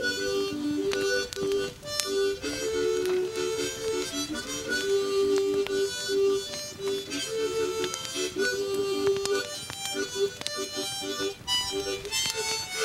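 Background music: a lively tune of short held notes that change every fraction of a second.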